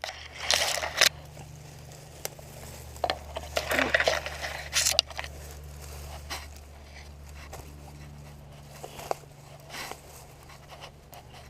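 Irregular rustling, scraping and crunching from someone moving through brush and mud at the water's edge, busiest in the first few seconds and then sparser, over a steady low hum.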